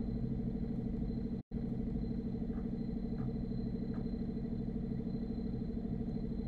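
Steady low mechanical hum with a fine regular pulsing, cut off briefly about a second and a half in. A few faint light taps sound over it.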